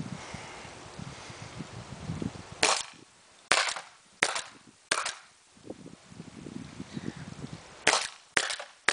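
Autococker paintball marker firing: four sharp pneumatic shots about three quarters of a second apart, a short pause, then three quicker shots near the end.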